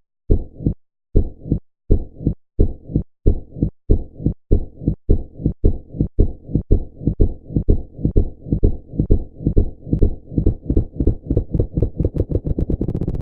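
Heartbeat sound effect: low double thumps, lub-dub, that start at a little over one beat a second and speed up steadily until they are racing and almost run together near the end.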